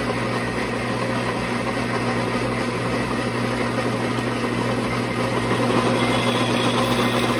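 Metal lathe running under power as a tool turns a light taper on an aluminum workpiece: a steady mechanical hum with a constant noisy cutting and gear sound, a little louder near the end.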